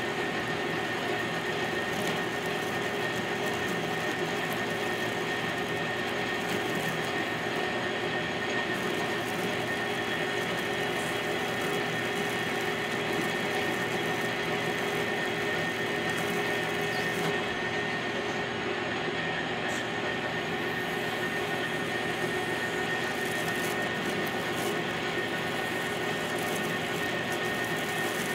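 Metal lathe running under cut, its tool turning down a round metal workpiece and throwing off chips. A steady machine hum and whine that holds an even pitch and level throughout.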